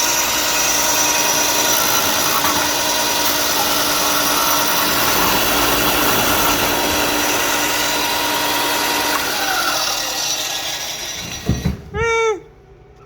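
Ryobi 4-inch belt and 6-inch disc sander running steadily while the disc sands a piece of 2x4, then winding down after it is switched off about ten seconds in.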